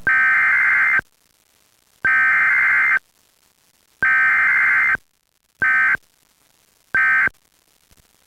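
Emergency Alert System SAME data tones: three one-second bursts of shrill digital warbling, a second apart, followed by three short blips of the same tone, the pattern of the end-of-message code.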